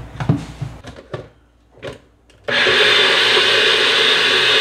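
A few light plastic clicks and knocks, then about two and a half seconds in a NutriBullet personal blender starts abruptly and runs with a loud, steady whir, blending apple, carrot and sweet potato with tangerine juice and water.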